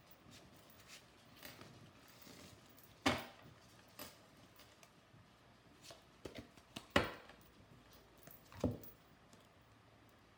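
Tarot cards handled on a table: a few scattered soft taps and slaps of the cards, the loudest about three and seven seconds in.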